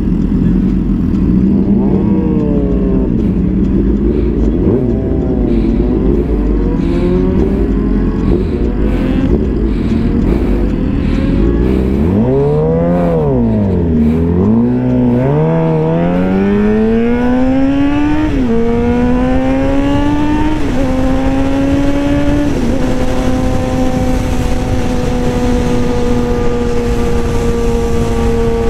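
Suzuki GSX-R 750's inline-four engine heard from the rider's seat, revving up and down a few times as the bike pulls away, then dipping low about halfway through. It then climbs steadily through the gears, three upshifts each dropping the pitch, and settles to a steady cruise near the end.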